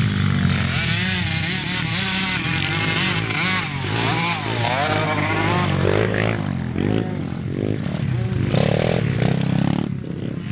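Engines of several racing off-road motorcycles and ATVs, revving up and down as they go round the track, with repeated rising sweeps in the second half as riders accelerate through the gears.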